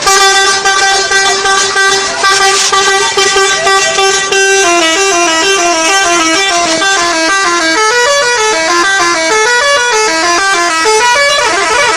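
Bus 'telolet' multi-tone horn: one steady note held for about four seconds, then a quick tune of short notes hopping up and down, changing to a different, faster pattern near the end.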